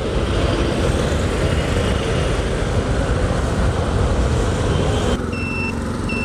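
Motorcycle riding through traffic, heard as a steady rush of wind noise and engine on a GoPro microphone. About five seconds in the rush drops sharply and an electronic beeper starts, sounding a short high beep about every three-quarters of a second, like a vehicle's reversing alarm.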